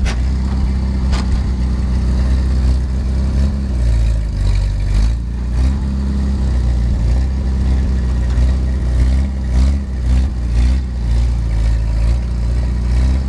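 1947 Willys Jeep's four-cylinder Go-Devil flathead engine running under way, heard from the open cab, the engine note falling and rising a couple of times, with light body rattles.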